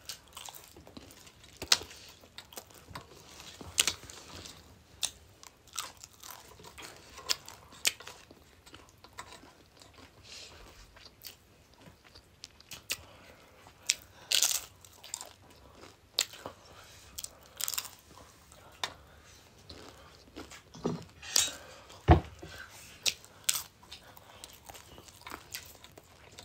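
Crisp papad (papadum) being bitten and chewed close up: irregular dry crunches, now and then a louder snap, with mouth-eating sounds between them.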